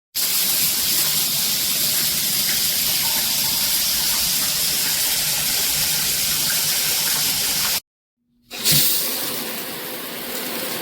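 Heatsistence high-pressure shower head running full, its spray a strong, steady hiss of water. The sound cuts off abruptly about eight seconds in and, after a short silence, starts again somewhat quieter.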